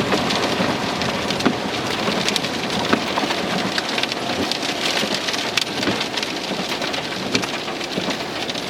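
Rain on a car's roof and windshield, heard from inside the vehicle: a steady hiss with many separate drop hits ticking through it.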